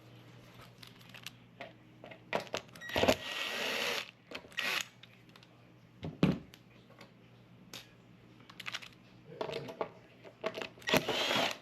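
Scattered clicks, knocks and scraping from hand work on a stove's control panel, pulling off the control knob and undoing the infinite switch's two side screws. Two longer stretches of scraping or rattling come about three seconds in and near the end, over a faint low hum.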